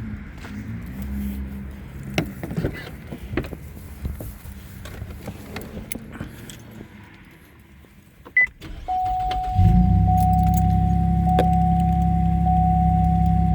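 Keys and a key fob rattling and clicking as they are handled, then a short high beep. About ten seconds in, a loud, steady droning hum with a high tone over it sets in.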